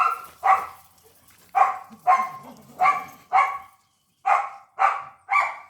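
A dog barking repeatedly, about nine short barks of the same pitch, mostly in quick pairs with short pauses between them.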